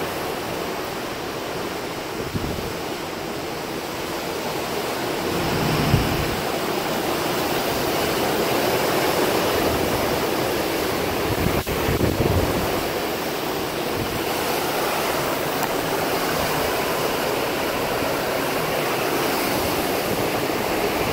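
Steady rush of the open sea along a cruise ship under way, mixed with wind, which buffets the microphone in low gusts a few times.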